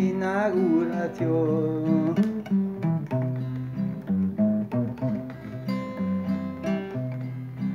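Classical acoustic guitar strummed and picked in an instrumental passage between verses, following the chords of a song. A man's singing voice trails off about two seconds in.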